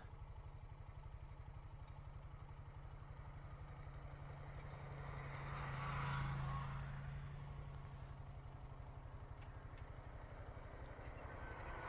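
Honda Foreman 520 ATV's single-cylinder engine idling steadily while side-by-sides drive past; one passing engine swells up and fades about halfway through, and another comes up near the end.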